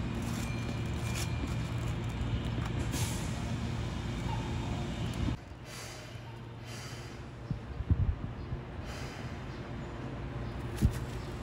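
Keihan electric train: a steady low running hum for about five seconds, then, after an abrupt drop in level, a quieter hum from a train standing at the platform with short hissing bursts and a couple of sharp thumps.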